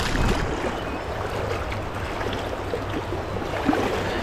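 Fast mountain trout stream rushing steadily over rocks, with a short low thump right at the start.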